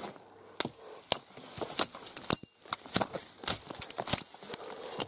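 Small hatchet chopping dry dead branches off a fir tree, used like a machete: a rapid, irregular series of sharp whacks and snapping cracks, the loudest a little over two seconds in.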